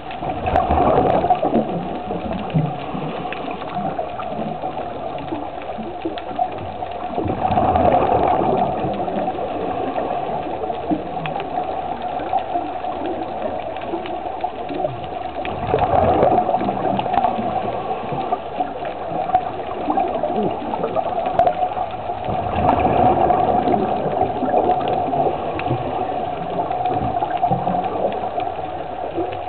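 Scuba diver breathing through a regulator underwater, with exhaled bubbles gushing out in four bursts about seven or eight seconds apart over a steady hum.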